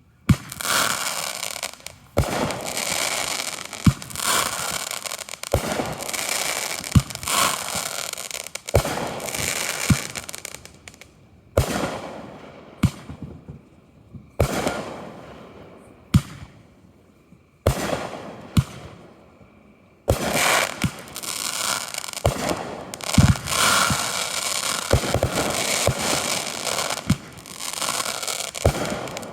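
Consumer fireworks going off in quick succession: sharp bangs over near-continuous crackling, the sound dropping away briefly a few times between volleys.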